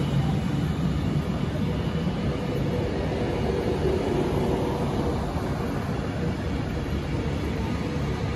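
Avanti West Coast Class 390 Pendolino electric train passing along the platform: a steady noise of wheels and running gear on the rails, with a faint hum.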